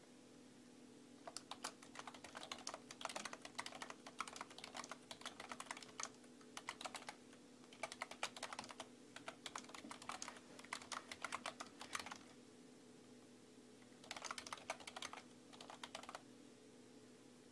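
Typing on a computer keyboard: runs of quick keystroke clicks with short pauses between phrases, starting about a second in and breaking off about two-thirds of the way through, then one more short run near the end. A faint steady hum lies underneath.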